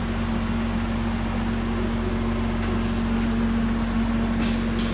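Steady mechanical hum of a running shop machine, with one constant low tone, and a few brief faint hisses in the second half.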